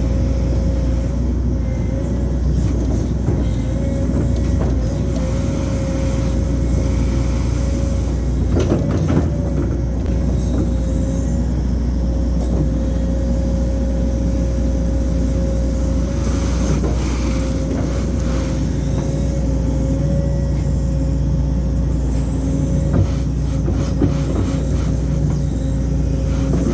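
Excavator's diesel engine running steadily with a constant hydraulic whine, heard close up from the machine. A few knocks and clanks stand out, the loudest about nine seconds in.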